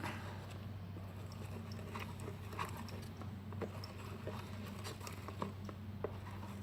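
Homemade slime being mixed and worked, giving scattered small wet clicks and squelches over a steady low hum.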